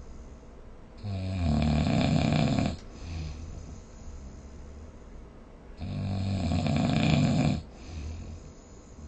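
Someone snoring in sleep: two loud snores about five seconds apart, each nearly two seconds long, with quieter breathing between them.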